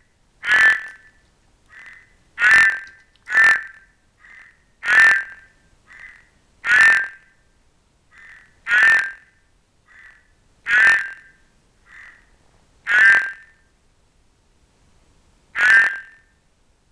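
Ceratophrys horned frog calling: about nine loud croaks, each well under half a second, coming every two seconds or so, with fainter short notes in between. It is a male's mating call, the frog eager for amplexus.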